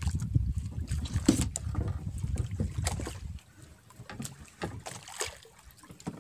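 Low rumbling wind and water noise aboard a small fishing boat at sea, stopping suddenly about three and a half seconds in, with scattered light knocks and clicks.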